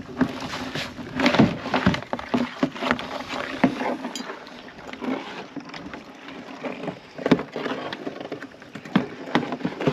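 Irregular knocks and scraping clatter of crabs and a crab pot being handled in a small boat, with sharper knocks about a second and a half in and again about seven seconds in.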